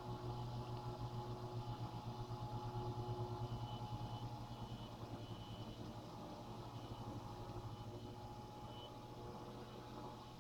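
i Maid LR500 robot vacuum cleaner running: a steady motor hum with a rapid low pulsing and a thin steady whine over it, getting gradually quieter in the second half.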